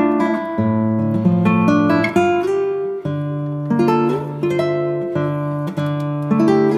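Background music: a guitar playing plucked notes and strummed chords.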